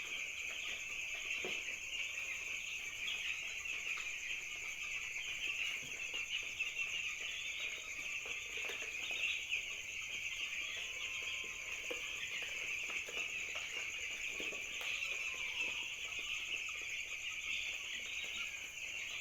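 A flock of young poultry chicks peeping continuously, many high calls overlapping into one steady chorus, with a steady high-pitched hiss above it.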